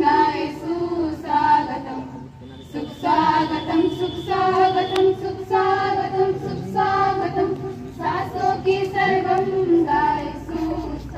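A group of young women singing a song together into a microphone, in phrases of held notes with short breaks between them.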